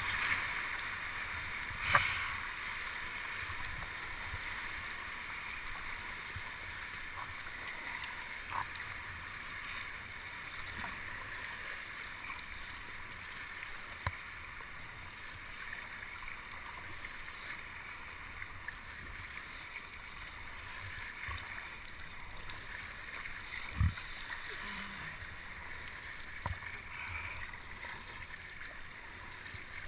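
Steady rush of moving water around a kayak, with a sharp knock about two seconds in and a dull thump about twenty-four seconds in.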